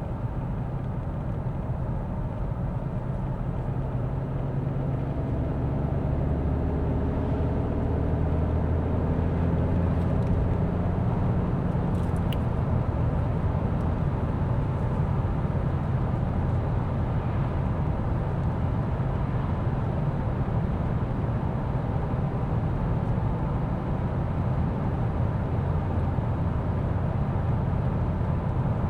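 Mercedes-Benz S 450d's 3.0-litre inline-six turbo diesel and its tyres on the road while driving, a steady low rumble. The engine note climbs gently over the first ten seconds or so as the car gathers speed, then settles into even cruising.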